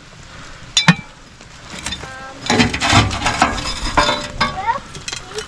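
A sharp metal clink about a second in, followed by lighter knocks and scrapes, as a metal tool works the campfire coals around a cast-iron Dutch oven.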